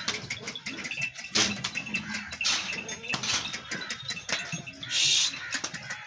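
A crowded pen of Makhi Cheeni goats jostling and shuffling, with many short clicks and rustles of hooves and bodies. About five seconds in there is a short, loud hissing burst.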